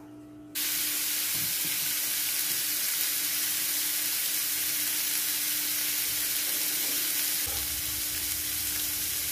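Sheepshead fillets frying in hot olive oil in a nonstick pan, a steady sizzle that starts suddenly about half a second in.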